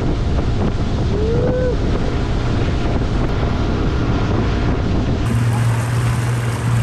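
Motorboat running at speed, its motor drone mixed with water rushing past the hull and wind buffeting the microphone. About two-thirds through, the sound turns into a steadier low hum.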